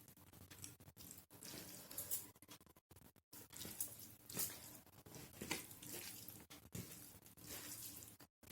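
Close-up eating sounds: wet chewing and squelching of rice mixed with dal and mashed potato, in irregular short bursts.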